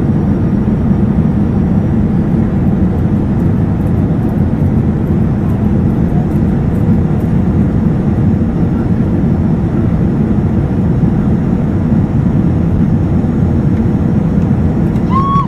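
Steady cabin noise of an Airbus A321-211 on approach, heard from a seat over the wing: the even rumble of its CFM56 engines and airflow on the fuselage, with no change in pitch or level.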